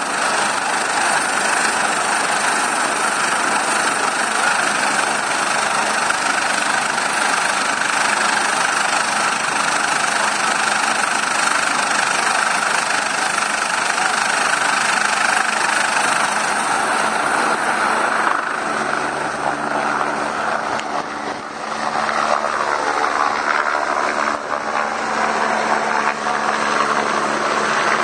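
Eurocopter EC145 twin-turbine helicopter running with its rotor turning, a loud steady noise. About two-thirds of the way in the sound changes and dips briefly as the helicopter lifts off and climbs away.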